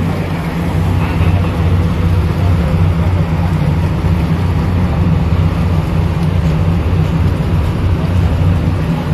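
Patrol boat engines running steadily, a deep low drone.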